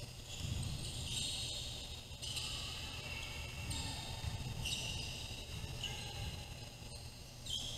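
Basketball game sounds in a gym: the ball bouncing on the hardwood court over general gym noise, with short high squeaky patches coming and going.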